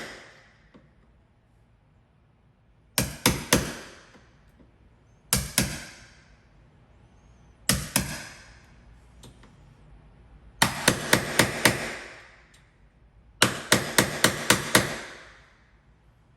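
A hammer striking a wood chisel in quick groups of blows, cutting a mortise in wood for a deadbolt. There are a few strikes about three seconds in, one or two more around five and eight seconds, and then two runs of about six rapid blows each past the ten-second mark.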